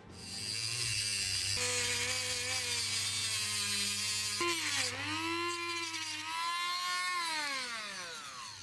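Small rotary tool with an abrasive cut-off disc cutting through a thin copper tube. Its motor whine comes up to speed at the start, dips sharply in pitch about five seconds in, then glides down as it spins down near the end.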